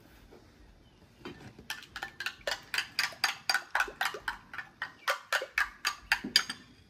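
Metal spoon beating eggs in a ceramic bowl: quick, even clinks of the spoon against the bowl, about four a second, starting about a second in and stopping shortly before the end.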